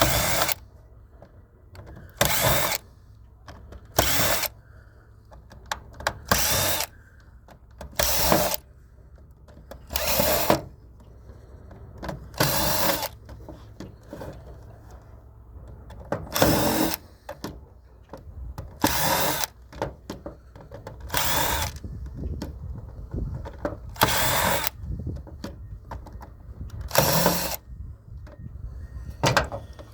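Power screwdriver or cordless drill run in about a dozen short bursts, each under a second and roughly two seconds apart, backing screws out of an iRobot vacuum's plastic case.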